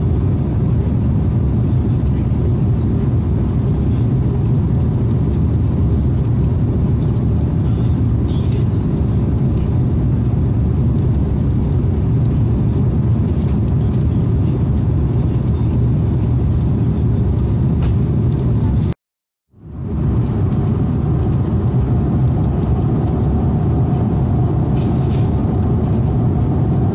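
Steady low rumble of an Airbus A330-300 passenger cabin in flight, the even drone of engines and airflow, cut off by a brief silence about two-thirds of the way through before it resumes.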